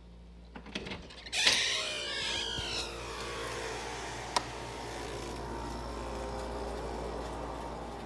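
A door opened about a second and a half in, with a squeaky scrape that falls in pitch, then a steady background hum and hiss from outdoors and a single click near the middle.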